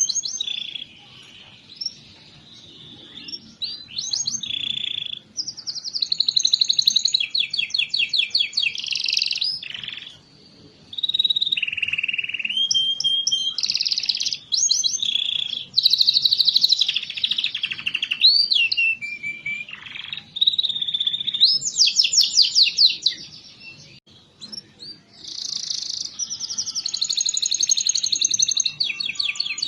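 Domestic canary singing a long, varied song of fast trills, rolls and sweeping notes, with short breaks between phrases.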